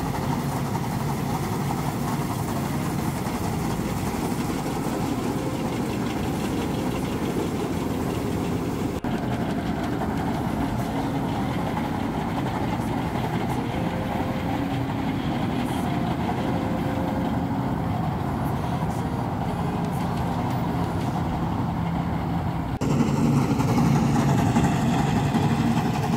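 Claas Crop Tiger 40 tracked combine harvester running steadily at work in the field. The sound changes abruptly about nine seconds in and gets louder for the last few seconds.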